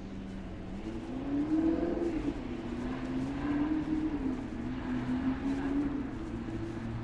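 Vehicle engine passing on the street. Its pitch holds steady at first, rises about a second in, then wavers up and down as it revs.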